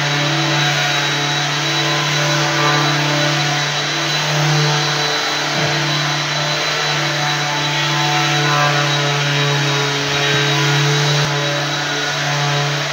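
Floor sanding machine running steadily: a loud, constant motor hum under a rushing noise, with a thin high whine.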